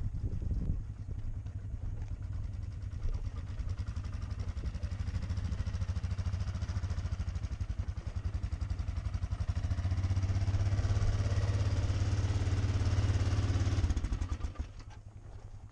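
ATV engine running at low revs. It gets louder for a few seconds past the middle, then drops away sharply about a second and a half before the end.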